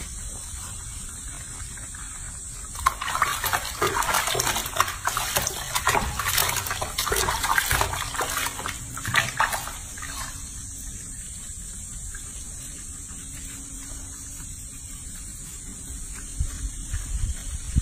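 Water sloshing and splashing in a sink as hands scrub a young monkey in the bath, loudest and busiest from about three seconds in to about ten seconds in, then settling.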